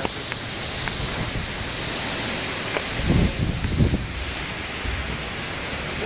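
Wind-driven rain, a steady rushing hiss, with gusts of wind buffeting the microphone in low rumbles about three to four seconds in.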